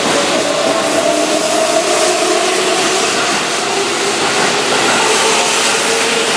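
Keihan 9000 series electric train running, with a loud steady rushing noise and a few faint tones from its VVVF inverter-driven motors that shift a little in pitch.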